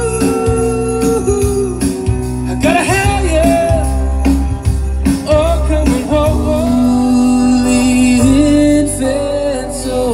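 Live band playing a Christmas song, with a steady bass line and a singer's voice.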